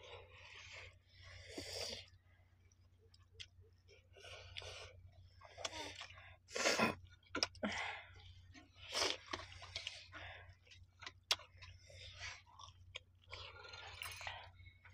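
Two people chewing and lip-smacking as they eat rice with dal and greens by hand, in irregular wet smacks with a few sharp clicks.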